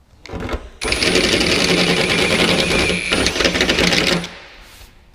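Power drill with a cone-cut step bit boring through sheet metal, running for about three and a half seconds with a steady high whine and rapid chatter of the cutting edges, its pitch dipping slightly near the end.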